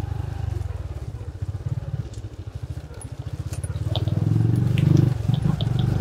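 Motorcycle engine pulling at low revs up a steep, rough dirt trail. It eases off about two seconds in, then opens up again and grows louder around four to five seconds, with a short drop just after. Light clicks and knocks come from the bike jolting over stones.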